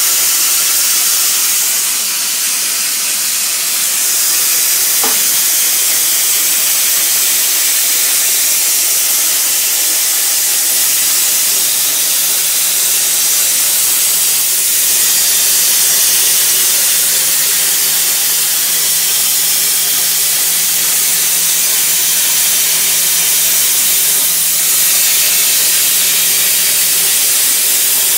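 Plasma cutter torch on a CNC plasma table cutting metal plate, making a loud, steady hiss from the arc and its air jet.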